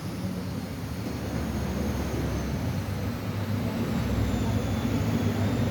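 A low, steady engine rumble that grows gradually louder.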